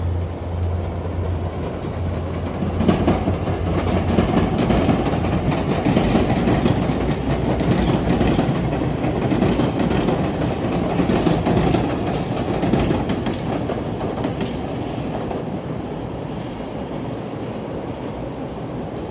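Commuter rail train running on the tracks: a low steady hum for the first few seconds, then rumble and wheel clatter that grow louder about three seconds in and ease off over the last several seconds.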